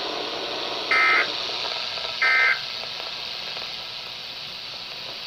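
Weather-radio SAME digital alert code: two short buzzy data bursts about a second apart, the end-of-message signal that closes the bulletin, followed by steady radio hiss.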